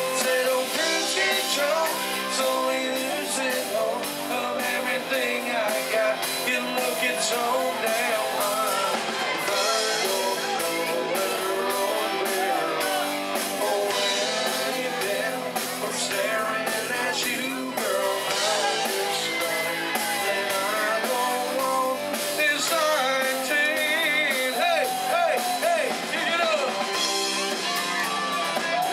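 Live rock band playing a song: a male singer over electric guitars, bass and a drum kit, heard through the PA from the room.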